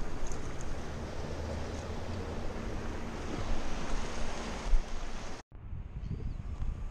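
Surf washing over shoreline rocks, with wind rumbling on the microphone. About five and a half seconds in it cuts off abruptly and a quieter beach ambience follows.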